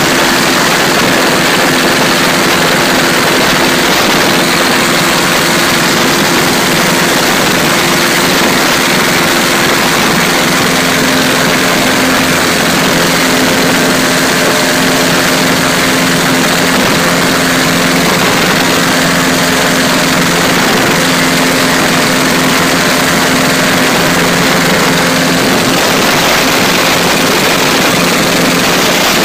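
Experimental light aircraft's engine and propeller running steadily at takeoff power through the ground roll and climb-out, loud, with heavy wind noise over the microphone. The engine note shifts slightly about a third of the way through.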